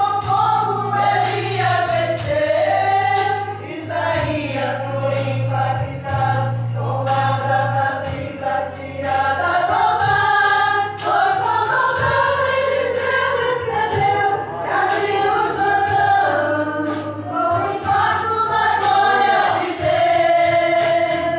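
Gospel song: voices singing a melody over a steady low instrumental accompaniment.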